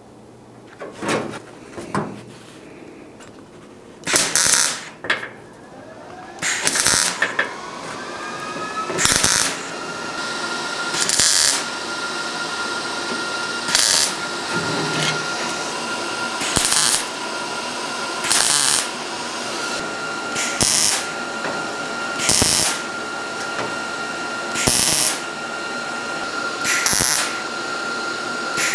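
Welder laying a series of short tack welds on steel sheet metal, joining a formed patch to an inner wheel well: about a dozen brief crackling bursts, roughly one every two seconds. Under them a steady high whine rises and then holds from about a third of the way in.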